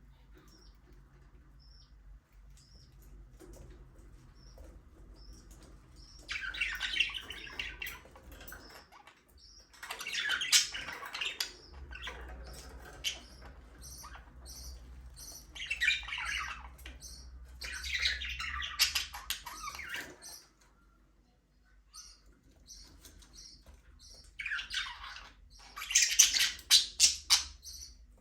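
Budgerigars chirping and chattering, with short repeated high calls and louder bursts of warbling every few seconds and a brief lull about two-thirds of the way through.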